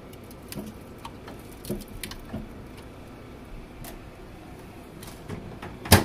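Scattered light taps and rustles of a handheld phone camera being moved about, with one sharp knock just before the end.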